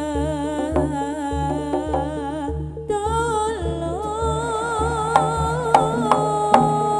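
Jaranan music playing: a wavering melodic lead line over a steady low drum beat, with a few sharp drum strokes in the last two seconds.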